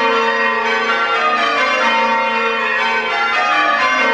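Church tower bells change ringing: bells struck one after another in quick, unbroken succession, their tones overlapping and ringing on.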